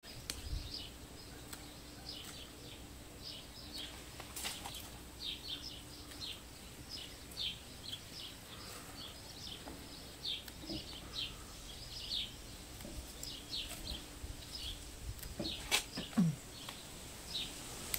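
Small birds chirping in quick, short, high calls throughout, with a few sharp snips of garden scissors cutting spinach leaves.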